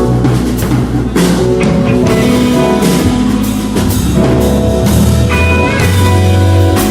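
Live band playing instrumental rock: guitar over held bass notes and a drum kit.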